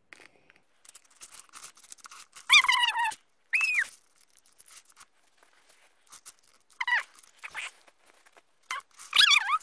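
About four short, high animal calls that fall or waver in pitch, the loudest sounds, over faint clicks and scrapes of a plastic spoon scooping in a plastic mould tray.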